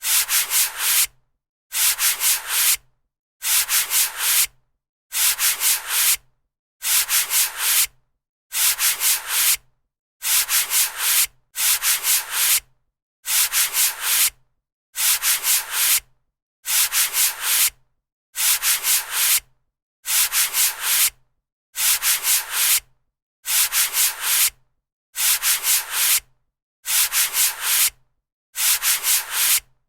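Eraser rubbing back and forth on paper, in short bursts of about four quick scrubbing strokes. Each burst is followed by a brief silence, and the pattern repeats evenly about every 1.7 seconds.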